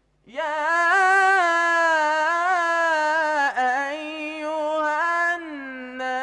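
Solo male voice reciting the Quran in the melodic tajweed style, sung into a handheld microphone. After a breath pause it rises into one long held phrase with small turns of pitch. A new phrase starts after a short break near the end.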